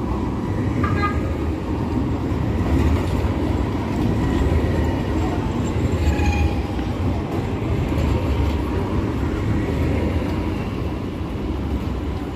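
Street tram running along its rails close by: a steady low rumble with faint whining tones above it.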